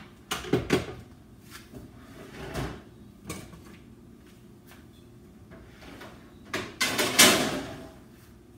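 Kitchen pans knocking against each other and the stovetop as they are handled and set down, with a few sharp knocks in the first second. About seven seconds in, a louder, longer clatter as a lower kitchen cabinet or drawer is shut.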